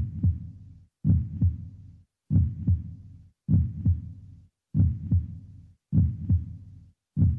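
Heartbeat sound effect: a deep double thump, lub-dub, repeating steadily about every 1.2 seconds.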